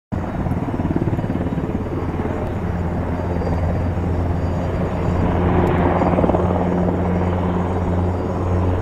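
Eurocopter transport helicopter flying low toward the listener, its rotor giving a steady low drone. The turbine and rotor noise swells louder about six seconds in as it comes closest.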